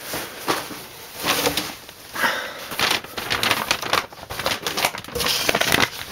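Paper being handled and lifted out of a cardboard box, with hands rummaging among the contents: irregular rustling and crinkling with small knocks against the cardboard.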